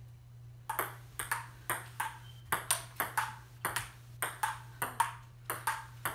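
Table tennis rally: a ping pong ball clicking off paddles and bouncing on the table, about three or four sharp hits a second, each with a brief ring. The rally starts just under a second in.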